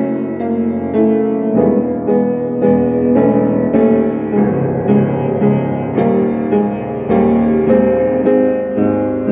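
Piano playing: a steady pulse of chords struck a little under twice a second, the notes held and ringing on into each other.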